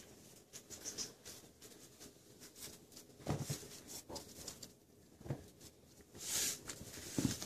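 A six-week-old West Highland White Terrier puppy sniffing and scuffling under a couch on a wooden floor: soft scattered rustles and clicks, with three brief low sounds spaced about two seconds apart.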